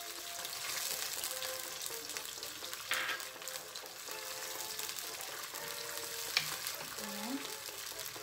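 A thin sauce of garlic, onion, oyster sauce and sugar sizzling in a nonstick wok while a wooden spatula stirs it, with a couple of light taps of the spatula against the pan.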